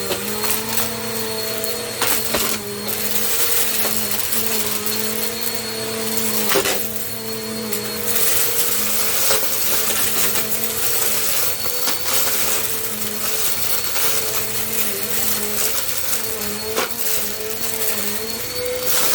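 Bissell compact vacuum cleaner running steadily, its motor hum wavering slightly in pitch over a loud hiss, with scattered clicks and rattles.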